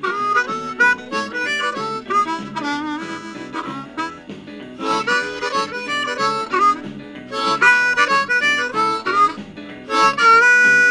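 Blues harmonica, a ten-hole diatonic harp played with cupped hands, a run of quick notes with bent, sliding pitches and some held notes. It starts suddenly at the beginning.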